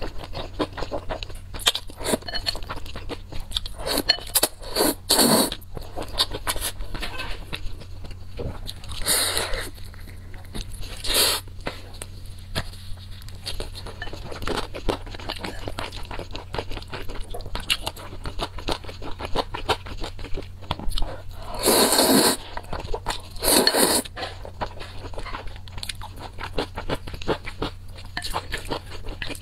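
Close-miked eating sounds of a person eating black bean sauce noodles: steady chewing with many small wet mouth clicks, broken by several louder noodle slurps about a second long.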